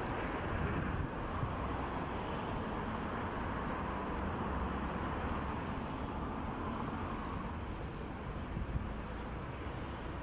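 Steady city street ambience: the even hum of road traffic.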